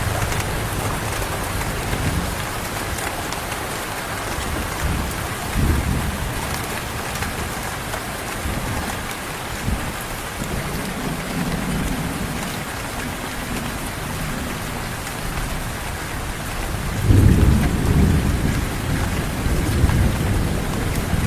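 Steady heavy rain falling, with low rolls of distant thunder. A louder thunder rumble comes in about three-quarters of the way through.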